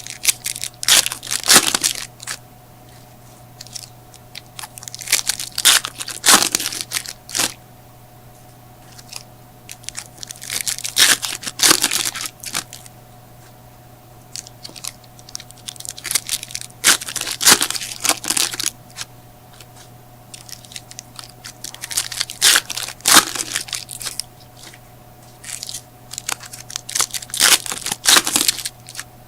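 Trading card pack wrappers being torn open and crinkled, in about six separate bouts of ripping and crackling a few seconds apart.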